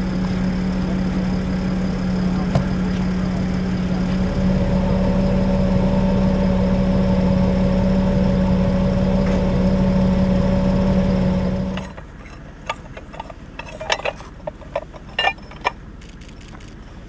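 Military wrecker truck's diesel engine running with a steady hum, a higher steady tone joining about four seconds in; the sound cuts off abruptly about twelve seconds in. A scatter of sharp clicks and clinks follows as the winch cable and its fittings are handled.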